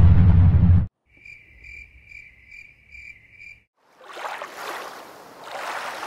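Music cuts off about a second in. Then a cricket chirps six times at an even pace, about two chirps a second, followed by a swelling rush of noise like water.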